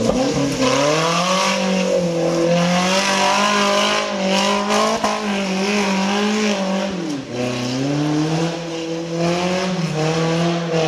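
Off-road vehicle engine revving hard under load: the pitch climbs within the first second and holds high, drops sharply about seven seconds in, then climbs again.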